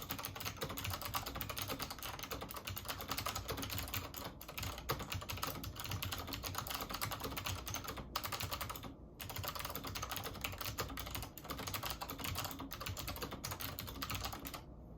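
Fast typing on a Chicony KB-5181 keyboard with Alps-mount SMK clicky switches (Monterey blue): a dense, steady stream of sharp keystroke clicks with a few short pauses. The typing stops just before the end.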